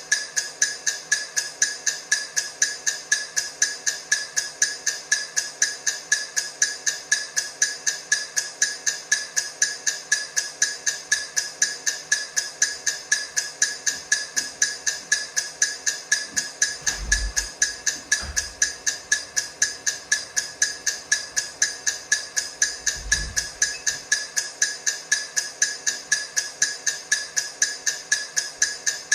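Countdown timer's clock ticking: a fast, even train of sharp ticks, several a second, without a break. A few low thuds come in about two-thirds of the way through.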